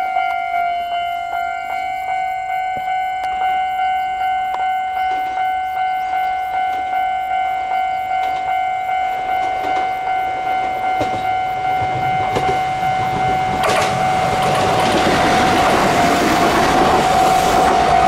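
A Japanese level-crossing warning bell dings steadily, about twice a second, warning of an approaching train. From about 12 seconds in, a Kintetsu Minami-Osaka Line train rumbles closer and passes through the crossing, growing much louder near the end.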